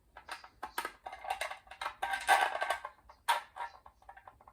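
Metal spin-bike frame parts knocking and clicking as a carriage bolt is worked up through a hole in a base frame piece: a run of irregular clicks, taps and scrapes, busiest a little past the middle.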